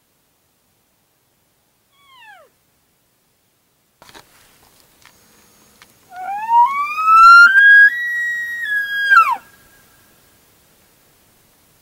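A bull elk bugling: one long, loud whistle that rises to a high held note and then drops sharply at the end, after a short falling squeal about two seconds in.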